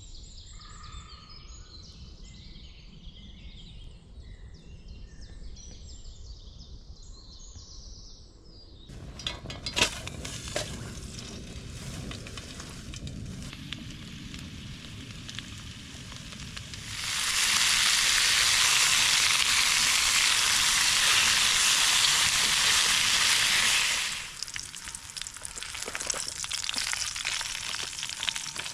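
Birds singing, then clicks and clatter of cooking kit. Food frying in a pan on a Trangia camp stove follows, sizzling loudly for several seconds past the middle, then more quietly near the end.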